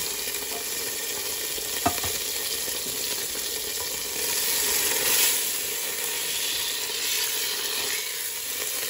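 Melted butter and cream of mushroom soup sizzling steadily in a hot pot, with a single sharp knock about two seconds in and the sizzle swelling briefly around the middle.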